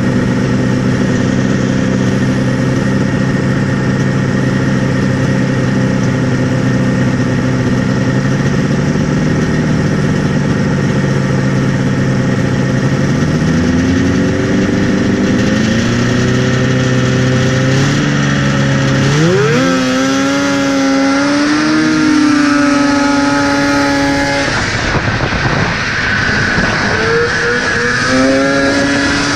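Vintage 340 snowmobile's two-stroke engine idling steadily, then revving up and accelerating hard about halfway through, its pitch climbing in steps to a high steady note at speed. Near the end it eases off briefly and picks up again.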